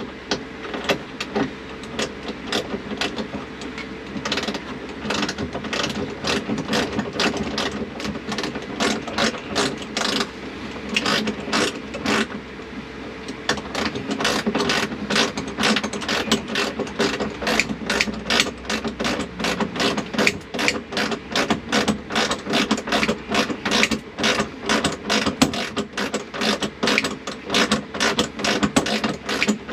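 Hand ratchet wrench clicking in repeated strokes while a seat belt anchor bolt is tightened. The clicks come in quicker, steadier strokes from about halfway through.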